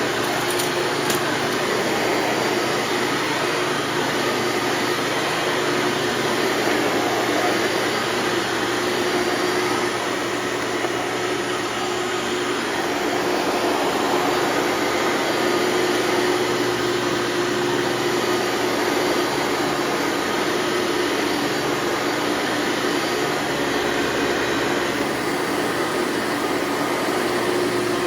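Hoover Elite bagged upright vacuum cleaner running steadily: an even rush of air with a constant motor hum.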